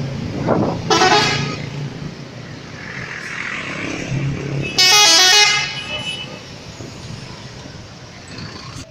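Indonesian bus 'telolet' horn, a multi-tone air horn playing short stepped-pitch melodies: a brief phrase about a second in and a louder, longer one about five seconds in, over steady road traffic.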